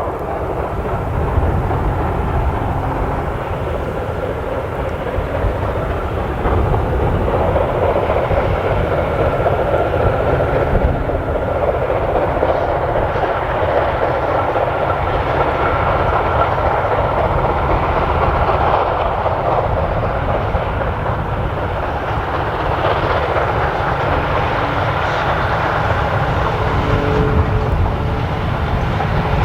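Steam locomotive BR 98 886 with its heritage train running on the line: a steady, loud rumble and rattle of the moving train, a little louder from about six seconds in.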